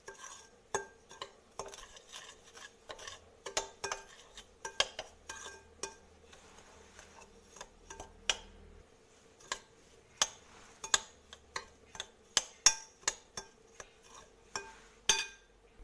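Metal spoon clinking and scraping against a glass bowl while stirring oil-coated fine semolina. Irregular clicks throughout, sharper and more frequent in the second half.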